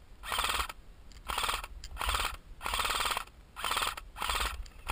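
Airsoft electric rifle firing about six short full-auto bursts in quick succession, each a rapid rattle of shots about half a second long.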